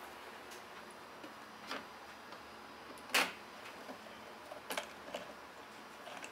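Sparse light clicks and knocks of hand-work on plywood and hardware, with one sharper knock about three seconds in; later small clicks come as a small wooden knob is fitted and turned onto a bolt.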